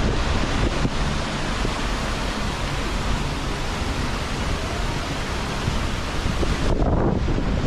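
Strong wind buffeting the microphone, a steady rushing roar with a rumbling low end.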